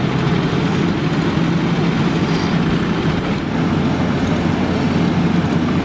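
Heavy diesel road-paving machinery running steadily: a loud, even engine drone.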